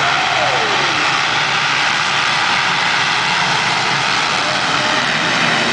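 A full pack of motocross bikes racing off the start together, their many engines at high revs blending into one loud, steady drone.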